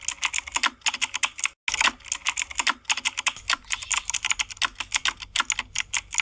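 Keyboard typing sound effect: a rapid, uneven run of key clicks, with a brief pause about a second and a half in.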